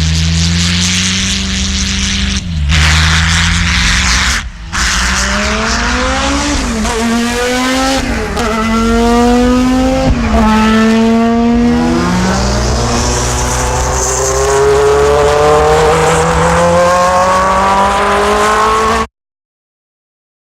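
Car engines in a sound-designed sequence. A low steady engine note gives way to an engine revving through a run of quick rising sweeps like gear changes, then to a long climbing acceleration that cuts off suddenly near the end.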